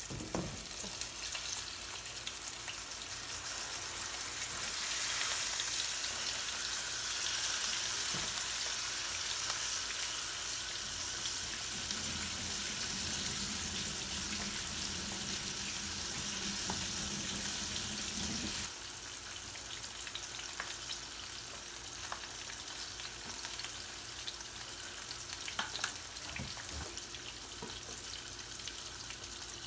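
Food frying in a pan, a steady sizzling hiss. It grows louder a few seconds in, a low hum joins about twelve seconds in, and both the louder hiss and the hum cut off suddenly about two-thirds of the way through, leaving a softer sizzle.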